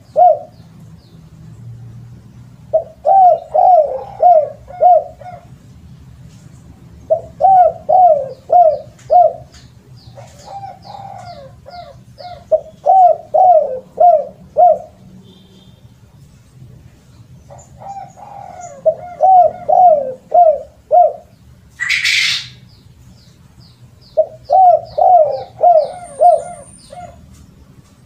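Spotted dove (tekukur) cooing: about five phrases of repeated coo notes a few seconds apart. Faint high chirping of other birds runs behind, and a short loud rustle-like noise comes about three-quarters of the way through.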